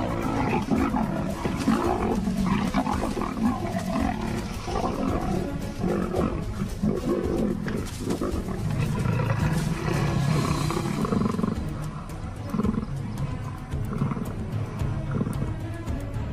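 Leopards fighting, giving harsh, rough calls in quick, uneven bursts, over background music.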